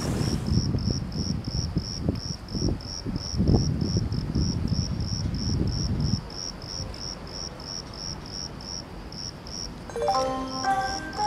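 A cricket chirping steadily in a high, even pulse, about three to four chirps a second, over a low rumble that dies away about six seconds in. Near the end, a station public-address chime of a few clear notes sounds.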